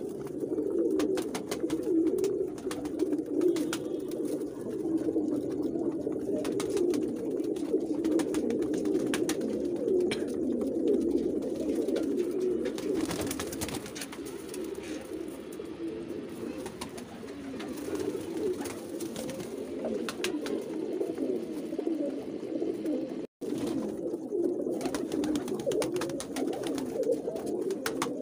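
Many domestic pigeons cooing together in a loft, a continuous overlapping chorus of low coos that breaks off for an instant near the end.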